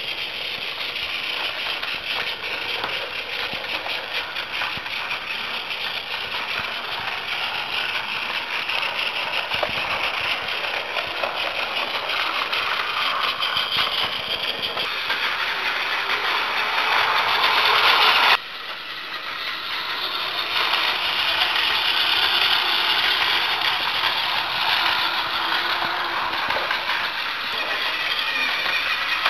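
Battery-powered Plarail toy trains running on plastic track: a steady whir of the small motor and gearbox with a rattle of wheels on the plastic rails. It grows louder as a train nears, breaks off abruptly about 18 seconds in, then builds again.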